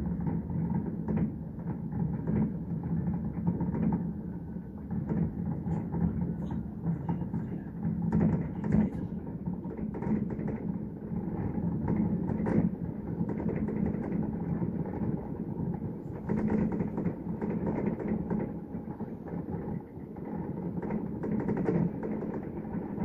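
Fireworks display going off in a dense, continuous run of dull booms and crackles, muffled as heard from a hotel room.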